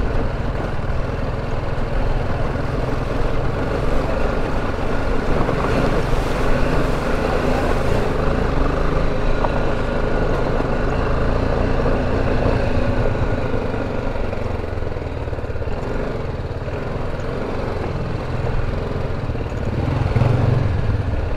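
BMW G310GS motorcycle's single-cylinder engine running at low speed on a rough gravel and rock track, with tyre and road noise. A steady rumble that grows a little louder near the end.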